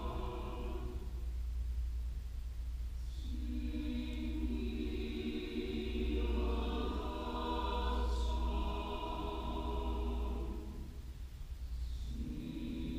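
Mixed choir singing slow, sustained chords in phrases. One phrase ends about a second in, the next enters about three seconds in and dies away near eleven seconds, and a new phrase begins about a second later, all over a steady low hum.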